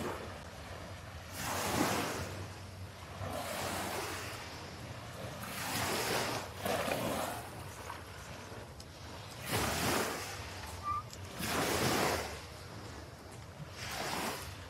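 Small waves washing onto a sandy shore, a swell of surf about every two seconds, over a steady low rumble of light wind on the microphone.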